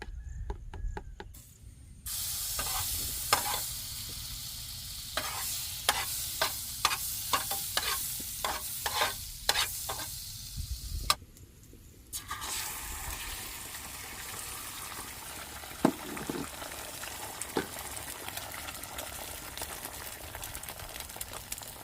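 Eggs frying in butter in a pan, sizzling while a spatula stirs and scrapes them, with sharp clicks of the utensil against the pan. The sizzle starts about two seconds in, breaks off for about a second near the middle, then resumes with fewer clicks.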